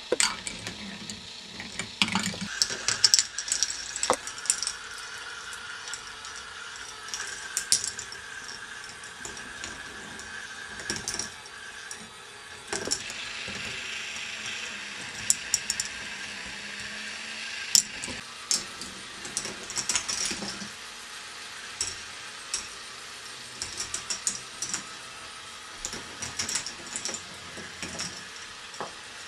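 K'nex ball machine running: plastic balls rolling and clattering along its tracks and elements, with frequent sharp clicks and knocks, over a steady whir from the motor-driven chain lift.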